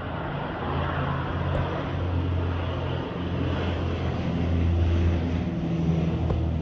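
A steady engine drone with a low hum, growing gradually louder.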